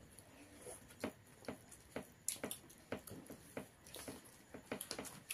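Eating sounds from people eating rice and curry by hand: faint, irregular lip smacks and chewing clicks, about three or four a second.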